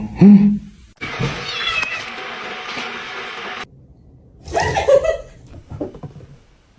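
A cat meowing and yowling in a few short, separate calls, with the sound cutting off abruptly between clips.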